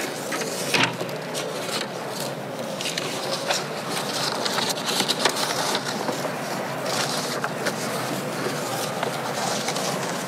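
Background noise of a large parliamentary chamber: a steady hubbub with many scattered clicks and knocks.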